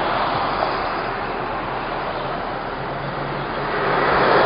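Steady street traffic noise, a dense hiss on a mobile phone's microphone, with a mandolin being strummed under it. A faint low engine hum comes in after a couple of seconds.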